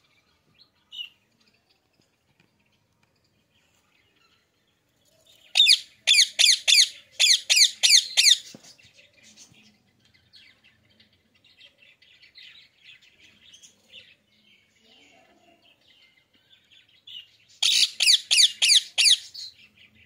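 Rose-ringed parakeets (Indian ringnecks) screeching: a fast run of about ten loud, sharp calls some six seconds in, softer chattering after it, and a second run of about seven loud calls near the end.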